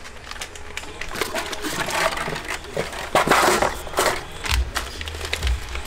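Cardboard boxes and paper packing rustling and crinkling as parts are handled, with scattered small clicks and knocks; the loudest rustle comes about three seconds in.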